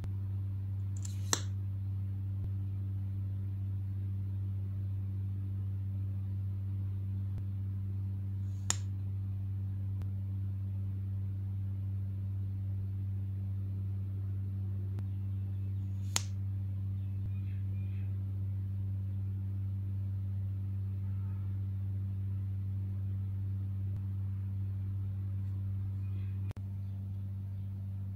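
A steady low hum with three sharp, short plastic clicks spaced about seven seconds apart, as a mascara tube and its cap are handled.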